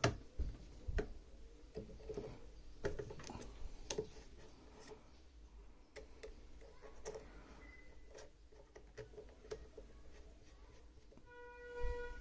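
Irregular small metallic clicks and taps as parts of a small cast prayer-bead lathe's tailstock drill chuck and tooling are handled and fitted by hand. Near the end a short steady tone sounds for under a second.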